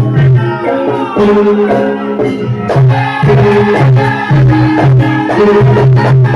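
Traditional Javanese music accompanying a mask dance: a repeating melodic pattern of held notes over regular percussion, with rattling.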